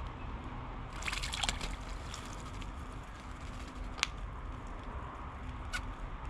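Wattlebird bathing in a bird bath: a short flurry of splashing about a second in, then two single sharp ticks later on, over steady low background noise.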